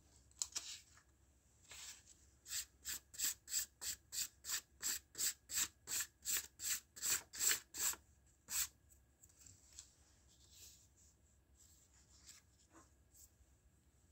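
Hand rubbing back and forth on drawing materials, about three quick strokes a second for some five seconds, with one last stroke after a short pause. A few light scrapes come before and after.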